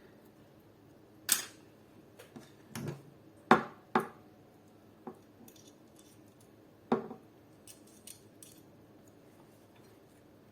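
Small metal Allen keys clinking and knocking against each other and the work surface while the right size is hunted for, about ten separate clicks at uneven intervals, the loudest about three and a half seconds in.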